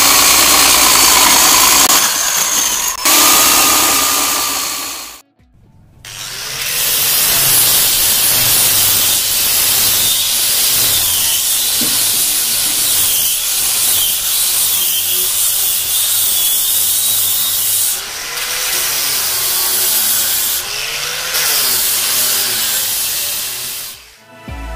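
Electric drill boring into a wooden door-frame timber with a spade bit, stopping after about five seconds. Then a handheld angle grinder with an abrasive disc runs against the wood for most of the rest, its pitch wavering as it is pressed into and eased off the timber.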